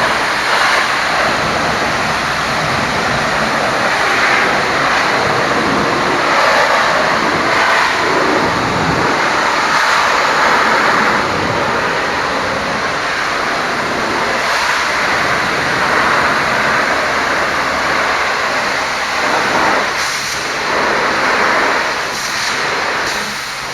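High-pressure water jet spraying against a truck: a loud, steady hiss of water that swells and fades as the spray moves over the surface.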